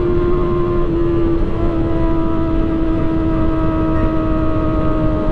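Sportbike engine running at high, steady revs while riding, its pitch easing down a little, over heavy wind rumble.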